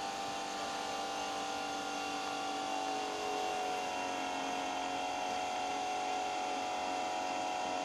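Electric patient hoist's lifting motor running steadily, a whine of several steady tones, while it raises a person seated in a sling off a chair.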